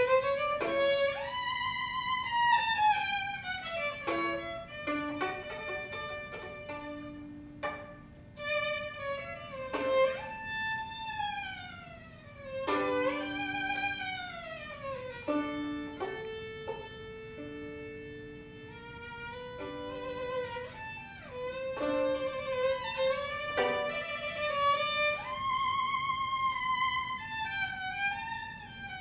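Violin playing a virtuoso passage: fast runs sweep down from high notes again and again, with held lower notes in between.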